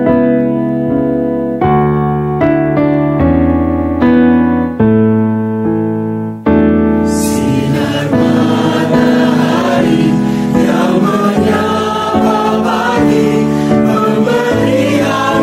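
Keyboard playing slow chords as an introduction, each chord struck and left to fade; about six and a half seconds in, a mixed choir of men and women comes in singing a devotional song over the keyboard.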